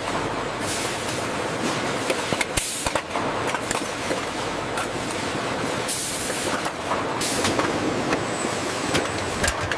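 Automatic jar filling and sealing machinery running: a dense, steady clatter full of small clicks, with a few short hisses of compressed air.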